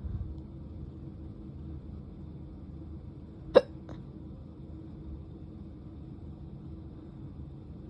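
A single sharp hiccup about three and a half seconds in, over a steady low background hum.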